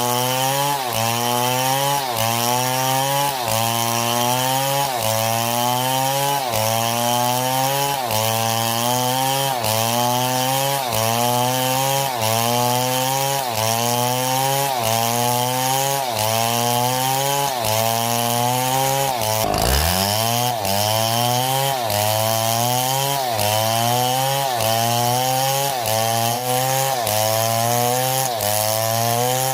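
Chainsaw running under load, its pitch rising and dropping back about once a second in a steady cycle. About two-thirds of the way through it dips sharply in pitch and then climbs back.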